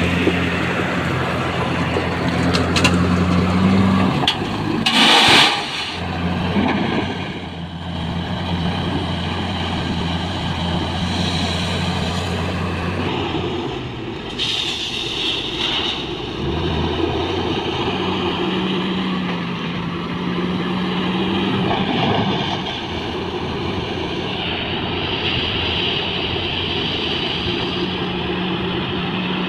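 Heavy diesel engines of a JCB wheel loader and a loaded dump truck running and working, the engine note shifting as the loader moves. About halfway through, crushed stone pours from the raised bucket into the truck's steel bed.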